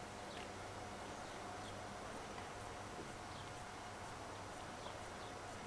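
Quiet outdoor ambience with a steady low hum and faint, short bird chirps repeating irregularly, roughly one every half second to a second.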